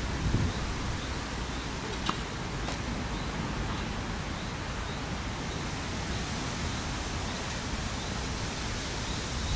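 Steady outdoor noise, mostly wind on the microphone, with two faint knocks a little over two seconds in.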